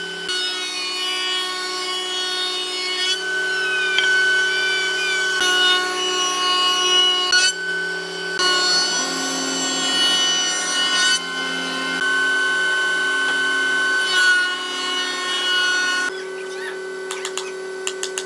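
Spindle moulder with a power feeder cutting a profile along a wooden handrail blank: a steady machine whine with cutting noise that shifts as the wood passes the cutter. About 16 seconds in it drops to a quieter hum with scattered clicks.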